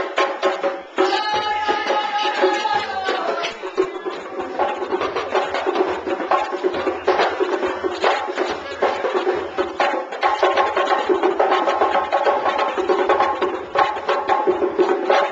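Live music with a busy wooden percussive beat and pitched instruments playing over it.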